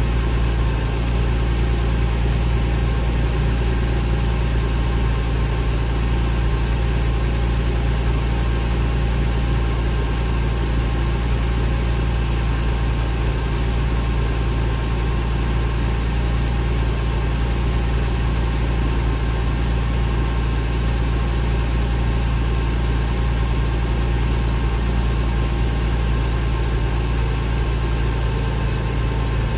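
2001 Porsche 911 Carrera's flat-six engine idling steadily through its twin exhaust tips, warming up after a cold start.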